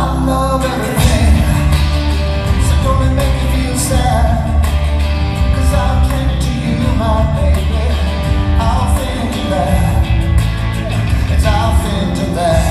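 Rock-and-roll song with a sung vocal line over a full band backing.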